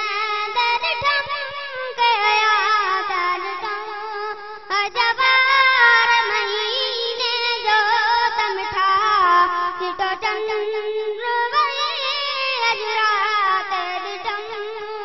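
A boy singing a Sindhi naat unaccompanied in a high voice, his long melodic lines bending and wavering in ornaments, with a brief pause a little over four seconds in.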